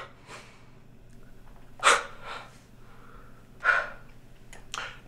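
A person breathing out in short, sharp huffs, four or five times with quiet between, the loudest about two seconds in.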